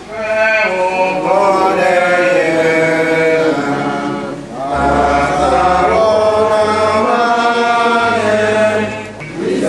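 Sung liturgical chant at Eucharistic Benediction. It comes in two long phrases of held and gliding notes, with a short break about four and a half seconds in.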